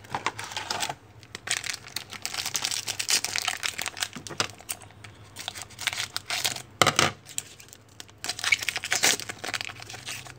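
Trading-card pack wrappers crinkling and tearing as packs are handled and opened, in irregular bursts.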